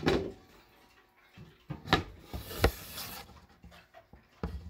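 A wooden back cover being fitted to a grandfather clock case: a knock as the panel meets the case, sharp clicks about two seconds in as the small swivel catches are turned to hold it, and another knock near the end.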